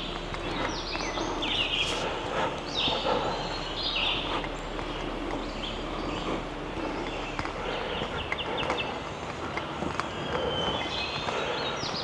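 Songbirds calling, short high arched notes repeated every second or so, over the steady footsteps of someone walking on a dirt trail.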